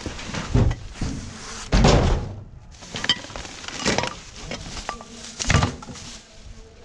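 Rummaging through discarded household items: a series of about five knocks and clatters, some with a short metallic ring, as things such as saucepans are shifted about.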